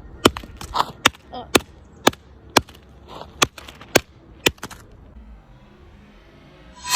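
Hammer repeatedly striking an iPhone 7, sharp cracking impacts about two a second that stop about two-thirds of the way through.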